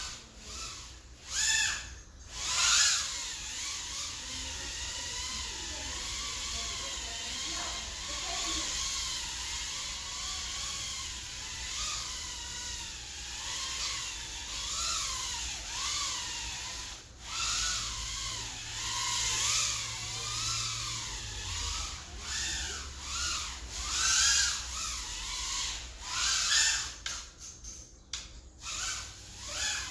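Mobula6 tiny whoop drone's brushless motors whining, the pitch rising and falling constantly with the throttle, with a few brief cut-outs.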